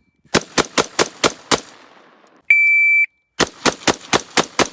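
Rapid semi-automatic rifle fire: a string of six shots about a quarter-second apart. A shot timer then gives one steady beep a little past halfway, and another string of six quick shots follows.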